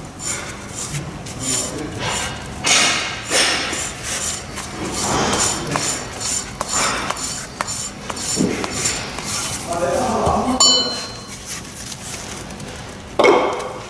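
Metal protector being worked loose and pulled off the end of a steel drill-pipe tool: scraping, clinking and knocking of metal on metal, with a short ring about two-thirds of the way in and a louder knock near the end.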